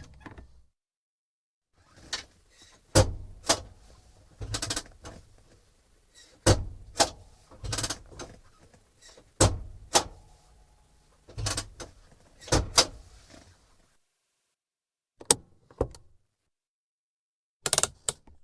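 Compact car's hand brake lever being pulled up and let down again several times: quick ratcheting clicks and heavier clunks in groups, with a few lone clicks near the end.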